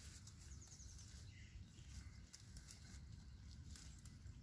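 Faint, crisp rustling and crunching of sheep pulling at and chewing willow leaves, over a low steady rumble.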